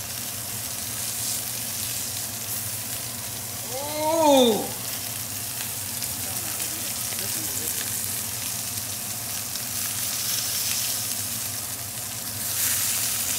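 Filet mignon steaks searing in hot oil in a cast-iron skillet: a steady sizzle that flares up near the end as a steak is turned over with wooden spatulas. About four seconds in, a person gives a short 'ooh'.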